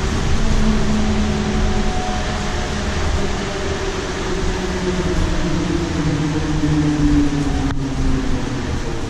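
Inside a moving 2016 Nova Bus LFSe battery-electric bus: steady road and tyre rumble, with the whine of its TM4 electric traction motor slowly rising and falling in pitch as the bus changes speed.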